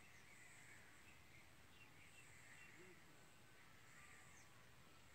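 Near silence: faint outdoor ambience with faint, scattered bird chirps.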